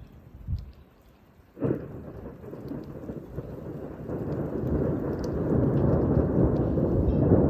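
Thunder: a sharp crack about one and a half seconds in, then a low rumble that builds steadily louder.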